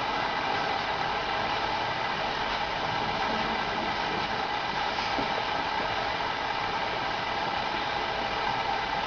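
Steady background hum and hiss, even in level, with a few faint constant tones in it.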